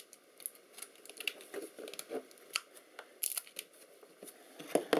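Cutter knife blade scraping and picking excess silicone sealant off an ultrasound probe's plastic housing: a run of irregular small scratches and clicks, with some crinkling of the probe's foil-and-plastic wrap.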